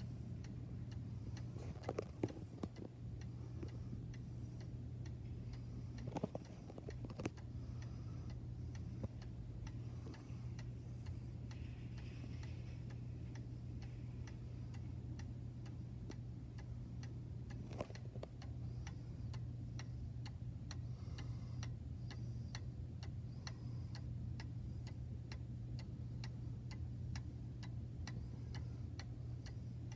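Vintage German three-weight cuckoo clock ticking steadily, its escapement giving even clicks over a steady low hum, with a few louder knocks in the first several seconds and one more about eighteen seconds in.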